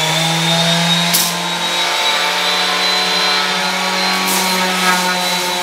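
Corded electric sander running: the motor comes up to speed at first, then runs steadily with a faint high whine.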